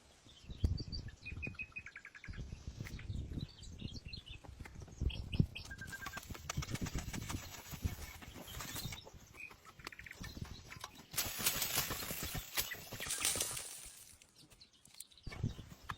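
Rustling and knocking of hands-on building work in the woods, with small birds chirping now and then in the background. A louder stretch of noise comes a little past the middle.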